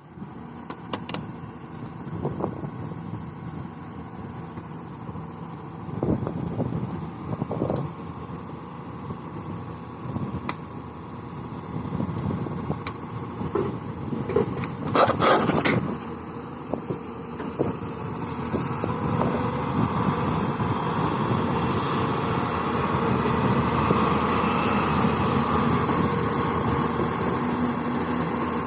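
Hyundai 210 excavator's diesel engine running, with a few clanks, a brief loud burst of noise about halfway through, and the engine growing louder in the second half.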